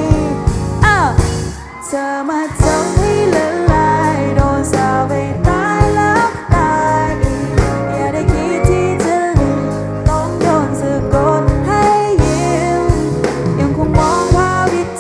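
Pop song with a lead vocal over a band with a steady drum beat.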